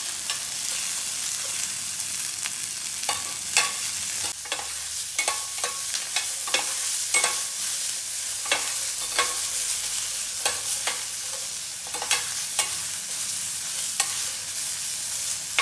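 A metal ladle stirring cherry tomatoes, garlic and chillies frying in a stainless steel pan, clinking and scraping against the pan about once or twice a second over a steady sizzle.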